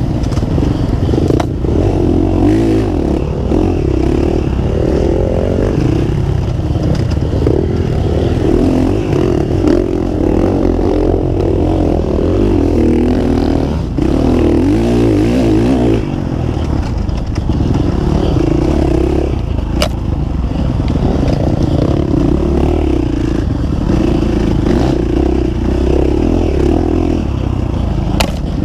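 Dirt bike engine heard close up from the rider's own bike, running hard under load with revs rising and falling.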